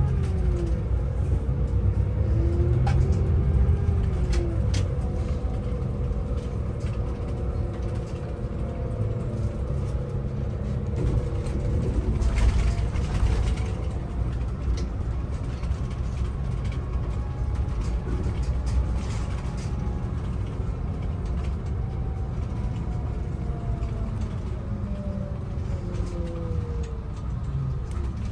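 Inside a moving city bus: a steady low rumble of the drivetrain and tyres, with a whine that rises and falls in pitch as the bus speeds up and slows. Scattered small rattles, and a brief hiss about halfway through.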